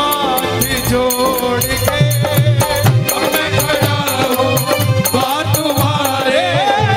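Instrumental passage of Hindi devotional bhajan music: a gliding, ornamented melody line over a steady drum beat with a shaker keeping time.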